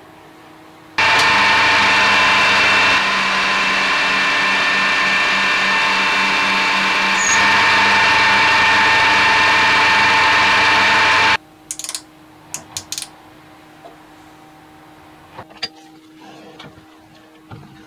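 Metal lathe running and taking a turning cut on a metal shaft: a steady mechanical whine with cutting hiss that starts abruptly about a second in and stops abruptly about eleven seconds in. A few light clicks and knocks follow.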